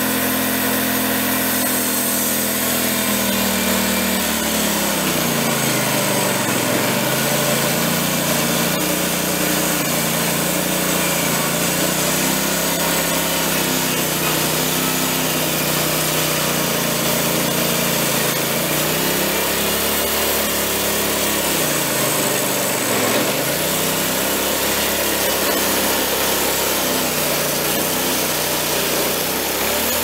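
Wood-Mizer LT15 portable band sawmill cutting through a hardwood log with a new 4-degree band blade: the engine runs steadily at high speed under the blade's hiss. Twice, about six seconds in and again near 23 seconds, its pitch sags and recovers.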